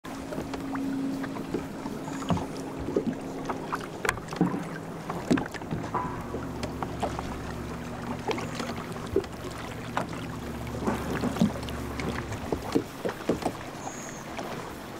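Water lapping against a bass boat's hull in irregular knocks and slaps, with a steady low motor hum from about six to twelve seconds in.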